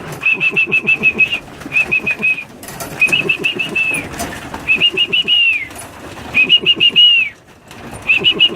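A whistled call to bring pigeons down to the trap: six short trilled phrases of quick repeated notes, the later phrases ending in a falling glide.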